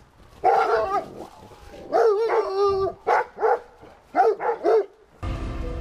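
Dogs barking: a run of loud barks, one drawn out about two seconds in. Music starts near the end.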